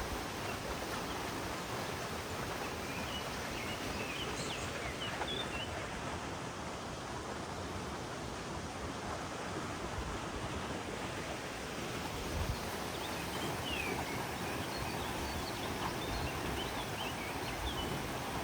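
Steady rushing of a flowing stream, with birds chirping in short high notes a few seconds in and again through the second half.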